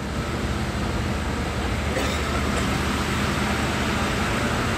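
A large vehicle's engine idling steadily close by, a continuous low hum under a broad rush of noise.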